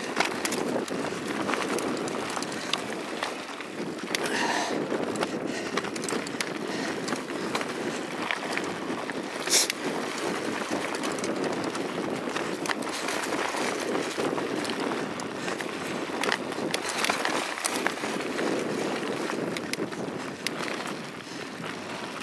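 Mountain bike rolling fast over a dirt woodland trail, picked up through a camera mounted on the bike: a steady rush of tyre noise with frequent small rattles and clicks, and one sharp knock about ten seconds in.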